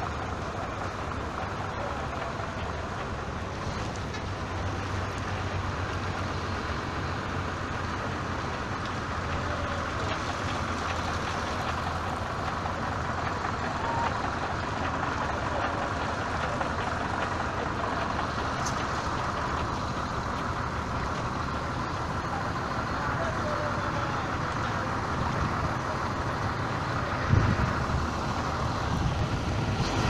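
Steady rush of heavy rain falling on flowing floodwater, with a low engine hum underneath. A brief low thump comes near the end.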